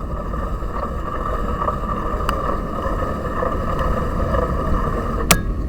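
Riding noise of a cyclocross bike: low rumble from the tyres and wind on the microphone, with a sharp click about five seconds in.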